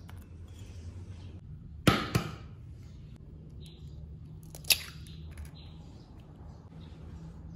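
An egg cracked into a glass bowl of mashed tofu: two sharp taps of the shell on the bowl about two seconds in, then a crisp crack as the shell is broken open a little before the five-second mark. A low steady hum runs underneath.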